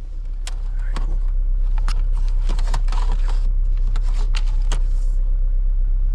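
Saab 900's engine idling, a steady low rumble heard from inside the cabin, with scattered sharp clicks and light knocks from parts and wiring being handled.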